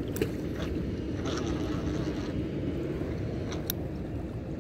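Steady low rumble of wind on the microphone, with a few light clicks of fishing tackle being handled while rigging for a cast.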